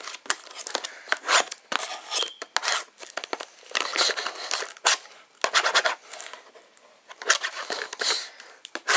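Plastic and foil wrapping on a Topps Finest trading-card mini box crinkling and tearing as it is pulled open by hand, in irregular sharp bursts.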